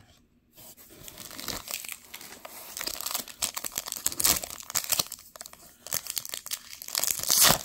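Foil wrapper of a Topps Chrome trading-card pack crinkling and tearing as it is pulled open by hand. There are louder rips about four seconds in and again near the end.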